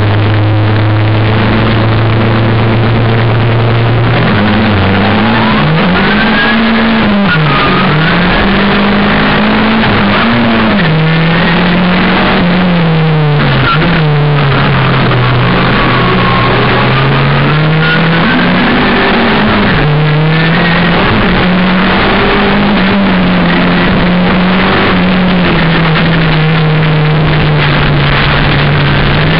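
VW Golf turbo rallycross car's engine heard from inside the cabin: held at a steady rev on the start line, then about four seconds in the car launches and the engine revs up and drops back again and again as it is driven hard through the gears.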